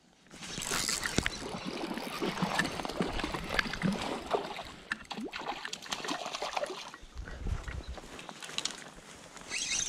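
A hooked trout thrashing and splashing at the surface of a small stream. Mixed with it are rustling and knocking from the angler's jacket and gear as he works the rod and takes up a landing net.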